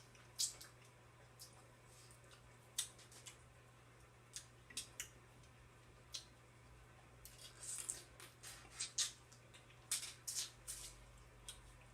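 Stone crab being eaten by hand: scattered sharp cracks and clicks of shell being broken and picked apart, with wet squishing, busiest in the second half. A low steady hum sits underneath.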